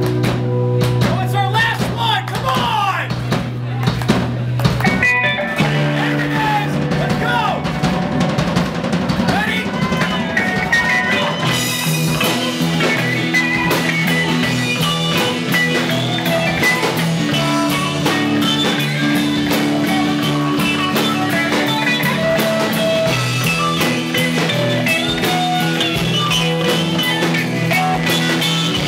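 Live rock band playing: electric and acoustic guitars, bass guitar and drum kit. About twelve seconds in the band grows fuller and brighter, with cymbals filling the top.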